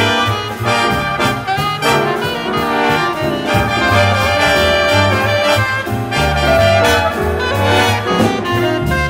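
Jazz big band playing full ensemble: trumpets and trombones to the fore over saxophones, with a double bass line and drums underneath.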